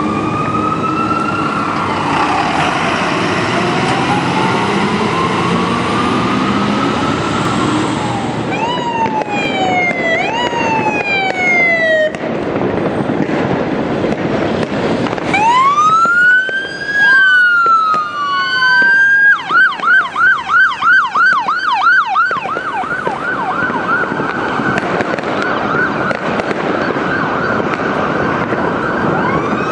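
Electronic sirens of fire engines responding: a slow wail rising and falling over a diesel engine's rumble, then short falling sweeps, a rapid yelp about three cycles a second from about two-thirds of the way in, then a long held tone, with a wail starting again near the end.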